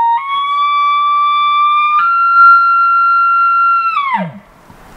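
Imitation bull elk bugle blown through a Phelps bugle tube: a loud, high whistle held for about four seconds that steps up in pitch about two seconds in, then falls away steeply into a short low grunt and cuts off.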